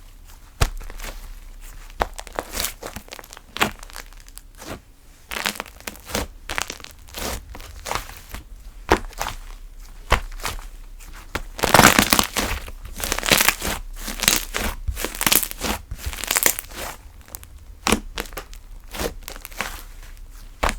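Hands squishing, poking and stretching a thick slime, which gives off a rapid crackle of sharp clicks and pops. The crackling grows denser and louder for a few seconds around the middle.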